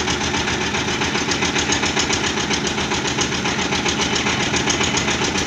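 Engine of a trailer-mounted Jaggat Jit borewell drilling rig running steadily under load, with a fast, even beat as it drives the rig's belt pulleys.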